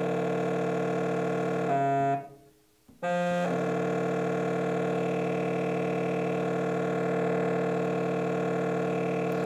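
Two low, close-pitched test tones played together through a small loudspeaker driving a stretched balloon membrane, a steady buzzy sound with many overtones. The tones cut off about two seconds in and start again under a second later.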